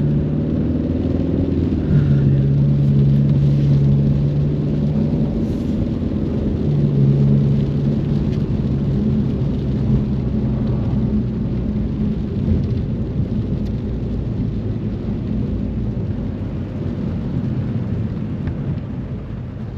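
Ford Mustang on the move, its engine holding a steady drone for a few seconds at a time, three times in the first half. Under it runs a continuous low road rumble, which carries on alone for the second half.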